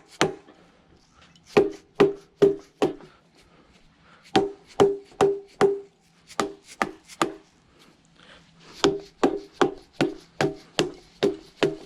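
Hammer blows on the cylinder head of a Jeep 4.0 inline-six, struck in runs of several blows about two to three a second, each with a short metallic ring, to break the head loose from the block; it has not yet come free.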